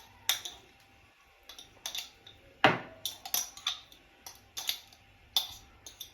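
A utensil clinking and tapping against a jar and bowl as achar is scooped into the chakalaka: about ten sharp, irregular taps, the loudest a little under three seconds in.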